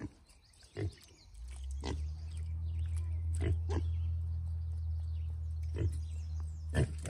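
Piglets grunting, short grunts every second or so, over a steady low hum that starts about a second and a half in.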